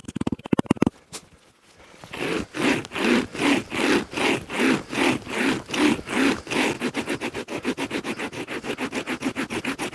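Pocket chainsaw, a bare chainsaw chain pulled by two hand straps, sawing back and forth through a green tree trunk about 15 cm thick: a rhythmic rasp of chain on wood at about two strokes a second, turning quicker and lighter near the end. A short clatter of quick knocks comes in the first second.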